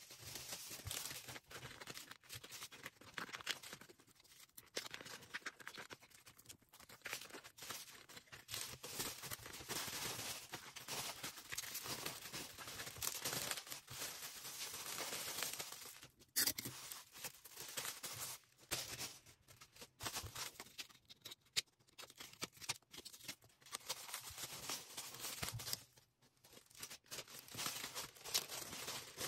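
Packaging being handled to pack an order: irregular rustling, crinkling and tearing, with a few sharp clicks and taps.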